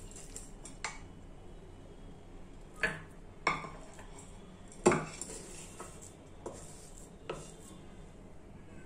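A spoon knocking and scraping against a glass bowl as thick gooseberry thokku is spooned in and pressed down: a handful of separate clinks and taps, the loudest about five seconds in.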